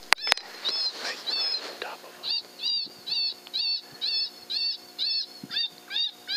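Electronic predator call playing a repeated high-pitched squealing distress call, about two squeals a second, with a faint steady hum underneath.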